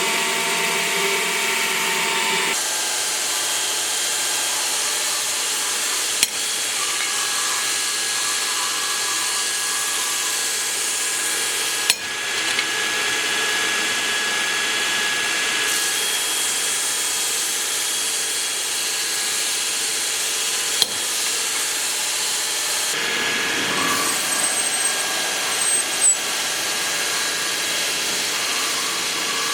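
Power tool running steadily on the leaf-spring steel blank, its tone changing abruptly several times.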